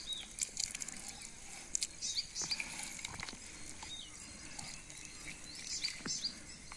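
Outdoor rural ambience: birds chirping in short repeated calls over a steady high hiss, with a few soft knocks.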